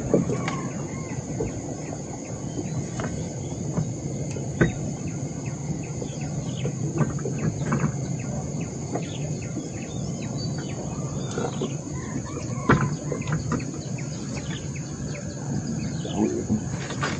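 River ambience at dusk: scattered bird calls over a steady high hiss. A few sharp knocks come from fishing gear being handled in an aluminium boat, the loudest about four and a half and twelve and a half seconds in.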